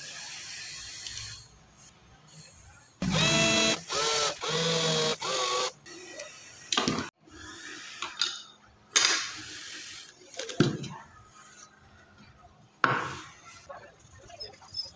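A small cordless drill-driver runs in four short bursts, each a whine that drops in pitch, driving small screws into the wooden box. It is followed by a few sharp knocks and clicks as the box and its hardware are handled.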